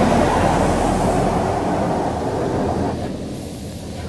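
WashWorld RAZOR touch-free car wash spraying water onto the car, heard from inside the cabin as a loud, steady rush of spray on the body and glass. It drops in level about three seconds in.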